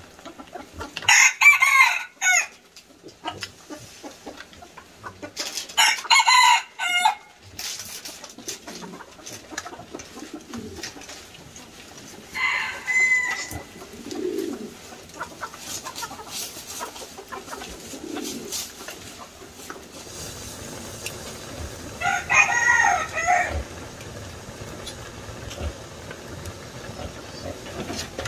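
A rooster crowing four times, each crow lasting about a second.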